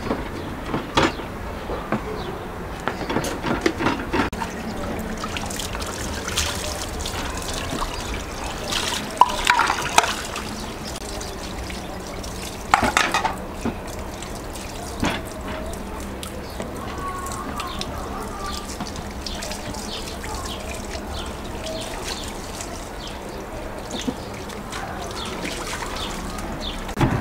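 Knife chopping and working wet minced meat with onion and herbs on a wooden board: irregular knocks of the blade on the board with soft wet squelching of the mince.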